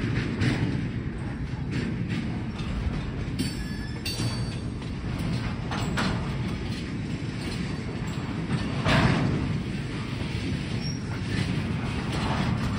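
Freight rail cars rolling along the track with a steady low rumble, broken by a few sharp metallic clanks from the wheels and couplings.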